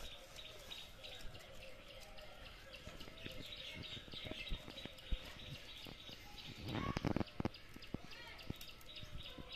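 Birds chirping continuously in the background, with a short rustling, clattering burst about seven seconds in as sticks are handled at a wood-fired clay stove.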